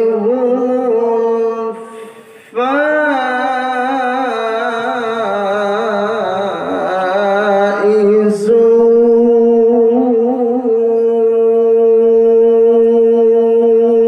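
A man reciting the Quran in melodic tilawat style, drawing out a single word in long held notes. A short break comes at about 2 seconds, followed by a wavering, ornamented passage, and from about 8 seconds a long steady held note.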